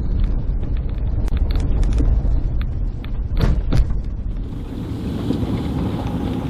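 Car driving on a gravel road: a low tyre rumble with small stones ticking and pinging against the car. About two thirds of the way through the ticking stops and a smoother hiss carries on.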